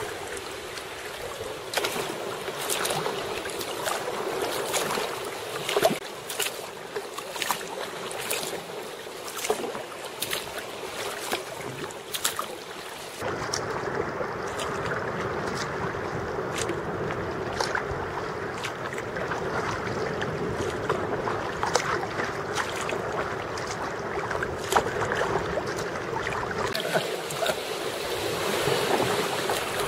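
Sea kayak paddle strokes and small waves splashing and lapping around the kayak hull, with many short, sharp splashes. The sound changes abruptly about a third of the way in and again near the end.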